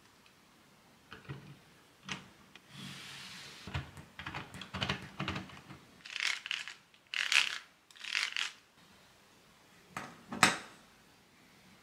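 Plastic LEGO Technic parts being handled: scattered clicks and short rattling, scraping bursts as a gear-rack assembly is turned over in the hands and set down, with a sharp clack about ten seconds in.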